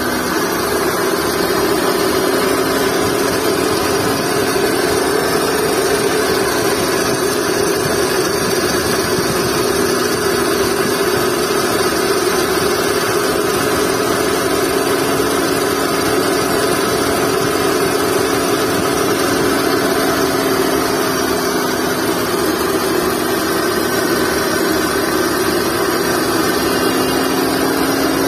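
Skoda Fabia engine idling, with a steady droning tone from the ribbed accessory drive belt and its tensioner pulley: the noise of a worn belt and tensioner bearing.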